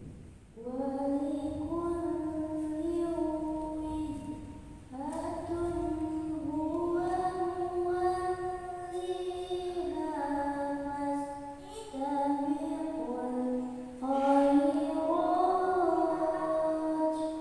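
A girl's voice reciting the Qur'an in the melodic qiro'at (tilawah) style into a handheld microphone. Long drawn-out notes that slide and ornament between pitches, in four long phrases with short breath pauses between them.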